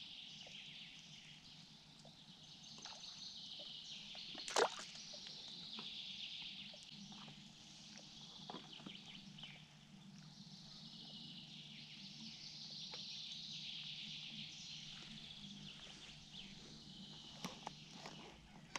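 Faint outdoor ambience of distant birds calling over a steady hiss, with one sharp click about four and a half seconds in and a few small clicks near the end.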